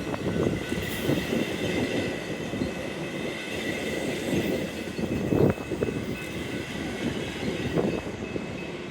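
Metra commuter train rolling past, its wheels rumbling with irregular clacks over the rail joints, one sharp clack about halfway through, and a faint steady high tone above.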